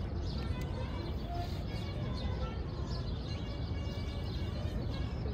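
Small birds chirping over a steady low city hum.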